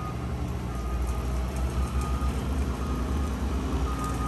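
Large marina boat-lifting forklift's engine running steadily as it carries a boat on its forks, a continuous low rumble.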